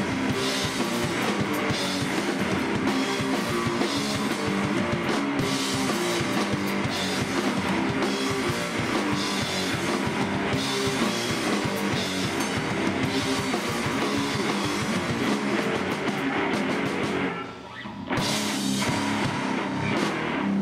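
Live rock band playing loud: drum kit with crashing cymbals over amplified guitar. The band drops out for about half a second near the end, then comes straight back in.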